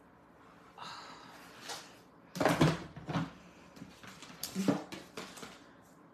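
A plastic embossing folder and the plates of an embossing machine being handled and set in place: a series of light clacks and scrapes, loudest about two and a half seconds in and again near five seconds.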